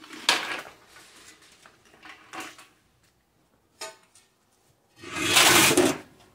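Handling noises from work under a tractor: scrapes and clunks of metal tools and gear, with a sharp click just before four seconds in and a longer, louder scrape about five seconds in.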